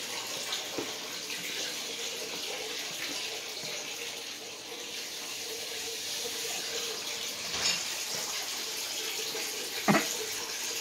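Steady rush of running water with a faint steady hum under it. A brief thump comes about ten seconds in, and a fainter one shortly before.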